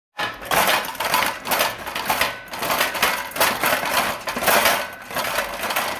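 Rattling and clattering of household fittings and objects as a room shakes in an earthquake, coming in uneven swells about once a second.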